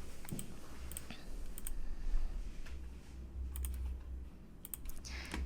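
Computer mouse clicking a handful of times, some clicks in quick pairs, over a steady low hum.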